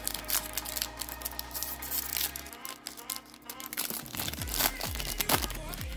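Foil wrapper of a trading-card booster pack crinkling and tearing as it is pulled open by hand, in a quick run of sharp crackles. Background music with a low beat comes in about four seconds in.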